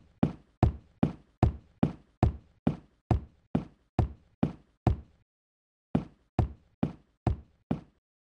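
A run of evenly spaced knocks, a little over two a second, each dying away quickly. The knocks stop for about a second, five seconds in, then five more follow.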